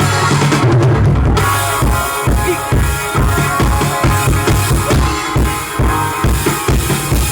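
Worship band playing an instrumental stretch between sung lines: drum kit with bass drum and snare keeping a steady beat over bass and keyboard chords.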